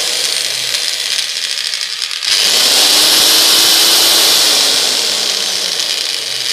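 Electric chainsaw motor running free with the guide bar and chain removed, a steady high-pitched rushing sound that gets louder about two seconds in.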